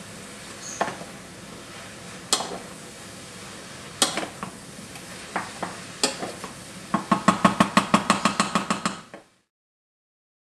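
Mushrooms and shallots sizzling steadily in butter in a stainless steel pot on high heat, with a spoon clanking against the pot a few separate times, then a quick run of about fifteen clanks as it is stirred hard. The sound cuts off suddenly a second before the end.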